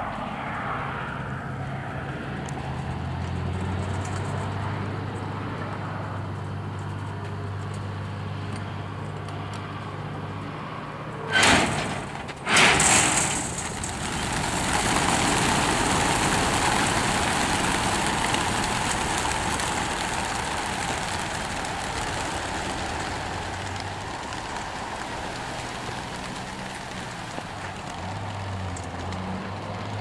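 Close to 2000 young racing pigeons released at once: a loud rushing whirr of massed wingbeats that starts just under halfway through, right after two loud, sudden bursts as the release hatches open, then slowly fades as the flock flies off. Before the release, a vehicle engine hums low and steady.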